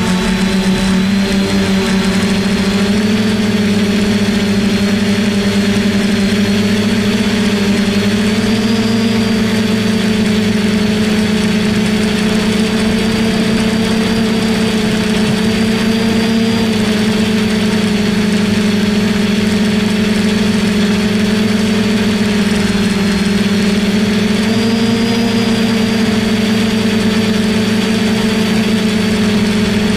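Brushless motors and propellers of a DJI F450 quadcopter, heard from a camera on its frame: a steady buzzing hum with a thin high whine above it. The pitch rises slightly about nine seconds in and again near twenty-five seconds, then settles.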